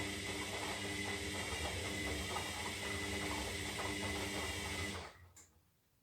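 Zanussi Lindo 300 washing machine running mid-cycle, its motor humming steadily with a rattly mechanical texture, then cutting out abruptly about five seconds in, followed by a faint click.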